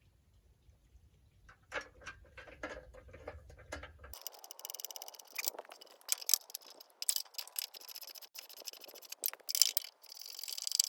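Small metal clicks and scrapes of hand tools and hardware as bolts are worked in by hand. The clicks are scattered at first, then from about four seconds in they come faster and louder, with scraping among them.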